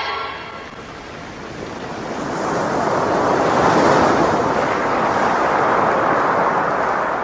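Ocean surf: waves washing in, the rush swelling to its loudest about four seconds in and then fading away near the end.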